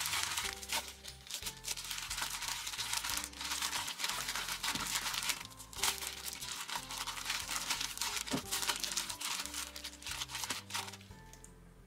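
A disposable plastic glove crinkling as a hand kneads minced meat in a stainless steel bowl, over background music. The crinkling stops near the end.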